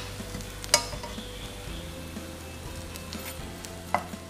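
Bread slices frying in ghee in a non-stick frying pan with a low, steady sizzle. A steel spatula clicks against the pan a few times, loudest about a second in and again near the end.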